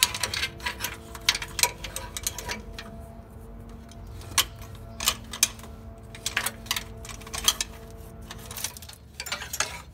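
Metal transmission cooler lines and their corrugated plastic sleeve clicking and knocking against the truck's underside as they are worked into place by hand: irregular sharp taps, over a faint steady hum.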